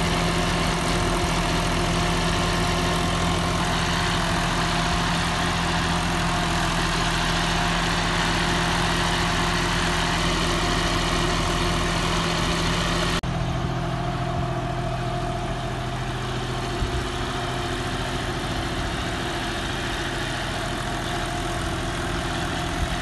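John Deere 5310 tractor's three-cylinder diesel engine running steadily under load, pulling a fully lowered 11-tine cultivator through the soil. About halfway through there is an abrupt cut, and the engine note carries on steady at a lower pitch.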